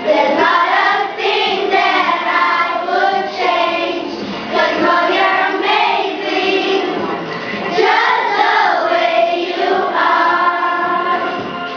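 A group of elementary-school children singing a song together as a choir.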